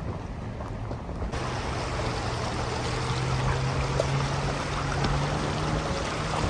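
Vehicle engine running with a steady low drone that rises slightly in pitch, under a loud rushing hiss of tyres or water. It cuts in abruptly about a second in.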